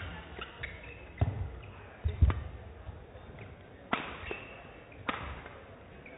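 Badminton doubles rally: sharp racket strikes on the shuttlecock about every second, the loudest near the middle, with short shoe squeaks and footfalls on the court mat.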